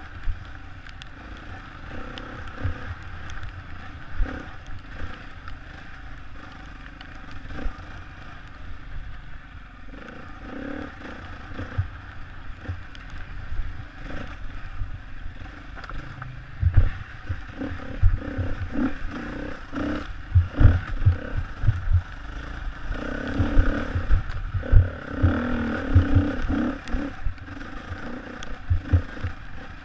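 Enduro motorcycle engine running under load on a rough dirt trail, with frequent low thumps and knocks from the bike hitting bumps, getting louder and busier from about halfway through.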